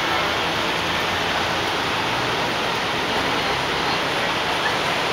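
Steady street noise with a low engine hum underneath.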